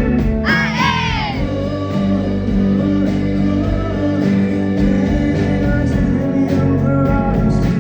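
Live rock band playing: held guitar and bass chords over regular drum hits, with a high wavering, gliding note about half a second in.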